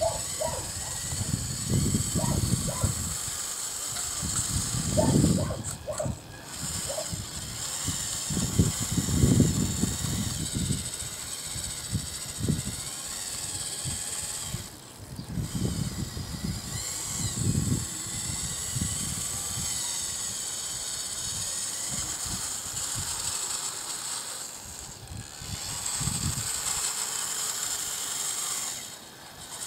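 Radio-controlled scale CAT wheel loader's small electric motors running in a steady high whine as it drives on gravel and works its loader arm, stopping briefly a few times, with repeated low rumbles underneath.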